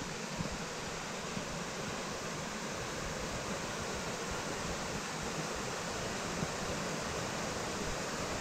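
Steady rush of flowing water, an even hiss with no rhythm, growing slightly louder over the few seconds.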